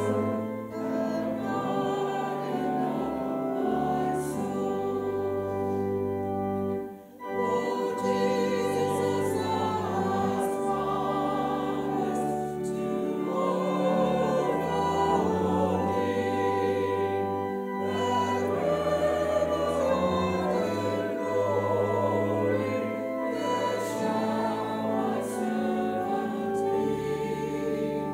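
Church choir singing a hymn with piano accompaniment, with a short break between phrases about seven seconds in.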